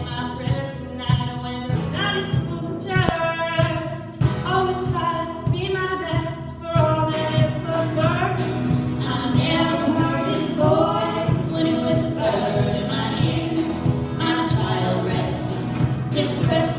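A song being performed: several voices singing together in harmony over steady musical backing with a regular beat.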